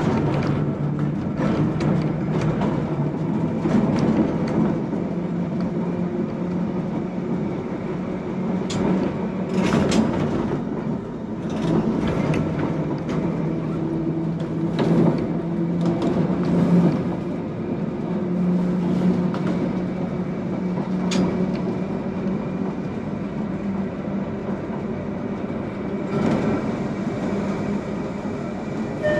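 Manx Electric Railway electric tram running, heard from inside its wooden front cab: a steady low motor hum that shifts a little in pitch, with frequent irregular clicks and knocks from the wheels on the track.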